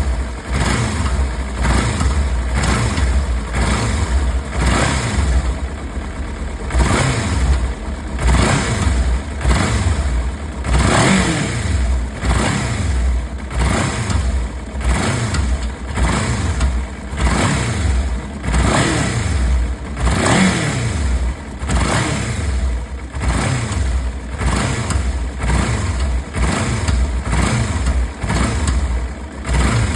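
Kawasaki Ninja 300's parallel-twin engine revved in short repeated blips, about one every second and a half, over a steady low rumble. The owner hears a clicking and knocking noise in it and is unsure of the cause.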